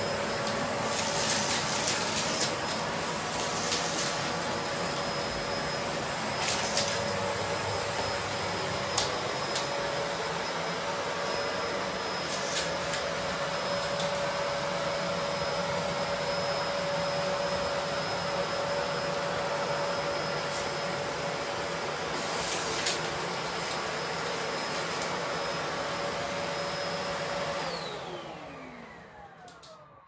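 Bosch BGS21X320 bagless cylinder vacuum cleaner running steadily with a constant whine, with occasional sharp clicks. Near the end the motor is switched off and winds down, its whine falling in pitch as it fades out.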